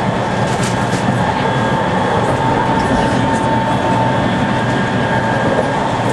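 Tatra T4D tram running along the track, heard from inside the passenger car: a steady rumble of wheels on rails with a constant whine over it.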